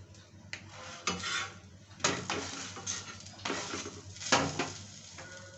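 Steel spatula scraping and knocking against a cast-iron tawa as a paratha is turned on it: five or six short scrapes over a few seconds, the loudest about two seconds in and about four and a half seconds in.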